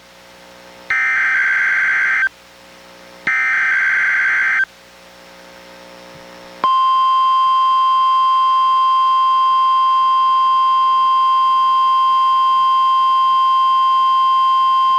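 NOAA Weather Radio alert tones from a Reecom R-1630 weather radio. First come two buzzy SAME header data bursts, each about a second and a half long with a short gap between them. About six and a half seconds in, the steady 1050 Hz warning alarm tone starts and holds; this is the warning alarm test of the Required Weekly Test.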